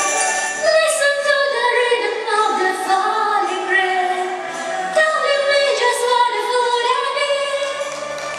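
Live music: singing voices over an orchestra, the melody gliding and changing pitch, with bell-like chimes ringing in the first second.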